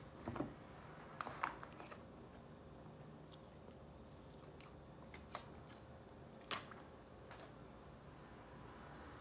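Quiet handling noise: a few scattered short clicks and crinkles as a new iPhone 11 Pro is lifted from its box and turned over in the hands.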